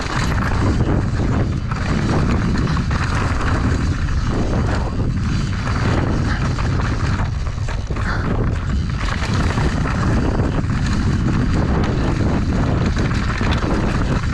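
Mountain bike descending a loose, leaf-covered dirt trail at race speed: steady wind rumble on the camera's microphone, with tyres on dirt and leaves and the bike rattling over bumps in quick, irregular knocks.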